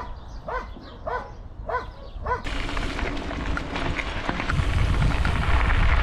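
An animal calling five times in an even series, about two short calls a second, then wind on the microphone and bicycle tyres rolling on gravel.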